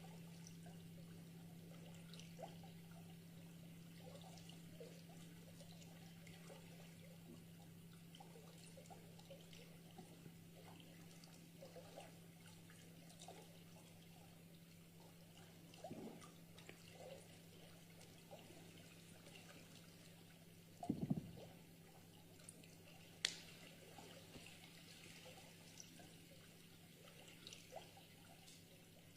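Faint water dripping and trickling, near silence, over a steady low hum, with one louder drop about two-thirds of the way through.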